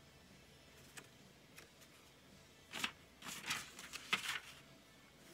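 Paper tags being handled on a craft table: a couple of light clicks, then about a second and a half of dry rustling and scraping near the middle as a tag is moved over a wood-mounted rubber stamp.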